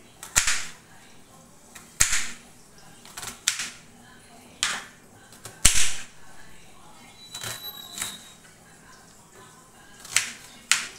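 Kitchen knife chopping an onion on a wooden cutting board: sharp knocks of the blade striking the board, about ten in all at irregular spacing of one to two seconds, with a quick run of smaller ones a little past the middle.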